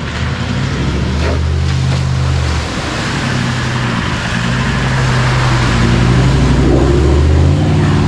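A four-wheel drive's engine running under load with a deep, steady note. Its pitch shifts a little about three seconds in, and it grows louder before easing off near the end.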